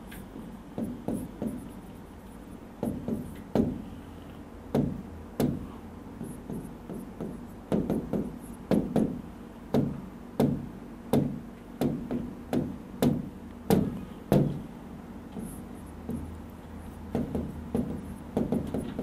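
A stylus knocking and tapping on the glass of a touchscreen display while drawing and writing, a long irregular string of short knocks about one or two a second.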